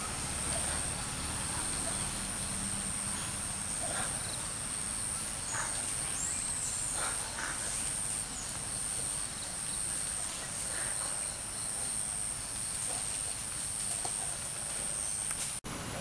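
Insects droning in a steady, high-pitched chorus over outdoor background noise, with a few faint short chirps in the middle. The sound drops out for an instant near the end.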